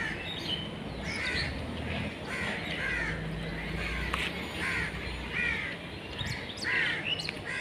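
Crows cawing over and over, short harsh calls one or two a second, over a low traffic rumble that swells in the middle.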